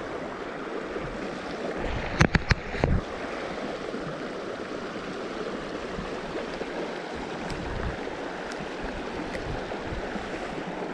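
Steady rush of a shallow, rocky river running over stones. About two seconds in there is a quick cluster of three or four sharp clicks.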